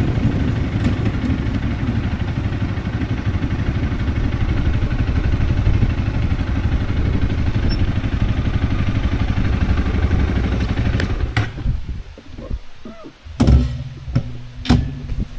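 Honda CRF250L's single-cylinder engine running steadily as the bike rolls to a stop, then switched off about eleven and a half seconds in. A few sharp knocks follow near the end.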